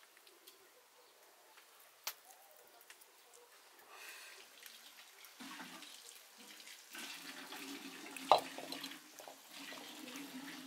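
Water being poured and splashed in a kitchen vessel, building from about four seconds in, with scattered knocks and one sharp clink a little after eight seconds.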